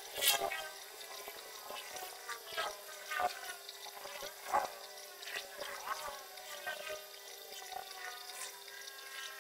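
A 60 W CO2 laser cutter running a cutting job: a steady hiss with irregular clicks and crackles as the laser head moves over the board.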